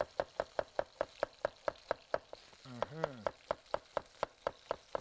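Chef's knife slicing red onion on a plastic cutting board: quick, even knife strikes on the board, about five a second.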